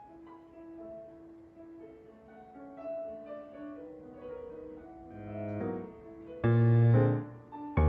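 Background piano music: soft, slow single notes, then a much louder full chord about six and a half seconds in, held for about a second, and another struck right at the end.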